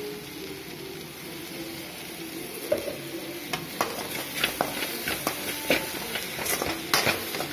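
Sliced okra and onions sizzling in a metal wok as a little extra oil goes in to stop the pan drying out. From about three seconds in, a perforated metal spatula stirs them, with repeated sharp clacks and scrapes against the pan.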